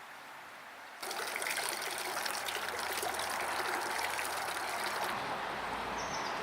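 Water splashing and trickling steadily, starting suddenly about a second in.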